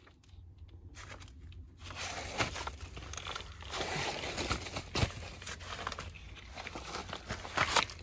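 Rustling and scraping of a person crawling across a dirt crawl-space floor, with scattered sharp clicks and knocks. It starts out quieter and picks up about two seconds in.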